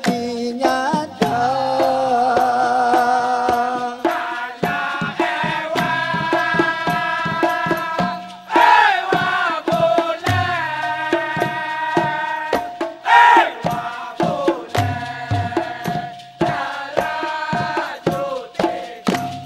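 Dikir barat: a lead singer and a seated male chorus singing in unison, with vibrato on the held notes, over steady rhythmic hand-clapping and percussion.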